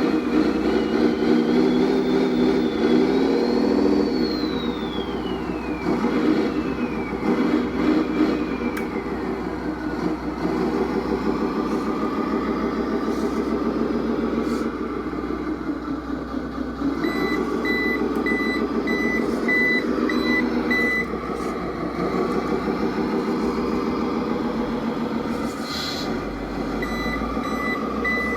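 OB1 3.1+ sound card in a Tamiya Scania G380 RC truck playing a simulated truck diesel engine through its small speaker, the engine pitch rising and falling in the first few seconds and then running steadily. A pulsed reversing beep sounds from about 17 s for a few seconds and starts again near the end.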